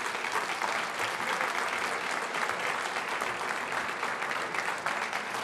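Audience applauding steadily, many hands clapping at once after the speech ends.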